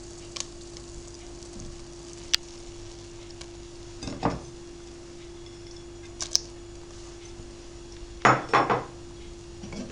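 A few sharp clinks and knocks against an enamel pot as cottage cheese is put into the boiling milk, with a heavier double knock near the end, over a steady low hum.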